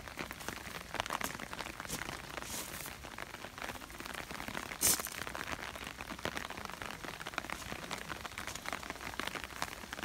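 Light rain pattering, mixed with footsteps crunching on wet gravel. A brief louder crackle comes about five seconds in.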